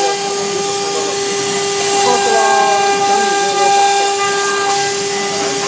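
Chinese 3 kW water-cooled spindle of a CNC router whining at one steady high pitch as its bit engraves MDF, over a steady hiss.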